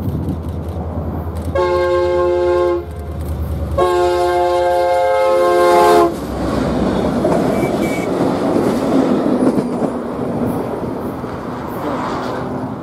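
Union Pacific diesel locomotive sounding its multi-chime air horn in two blasts, a short one and then a longer one, as it approaches. The locomotive then passes close by with engine rumble and wheel noise on the rails.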